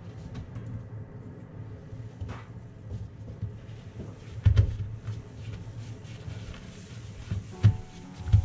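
Soft handling thumps and rustles of lotus-root slices being patted dry with kitchen paper, with a couple of louder knocks. Background music comes in near the end.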